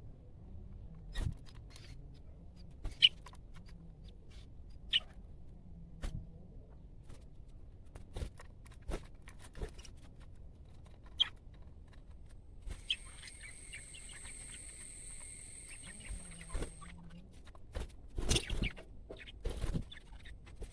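Budgies pecking at their food, with scattered light clicks and taps and a few short high chirps. A steady high whine runs for about four seconds past the middle, and a cluster of louder taps comes near the end.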